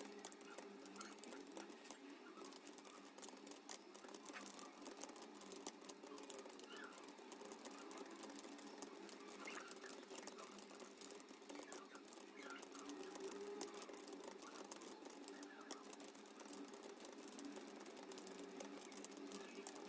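Faint, rapid clicking of computer keyboard keys in quick, uneven succession: continuous typing of a timed typing-test passage.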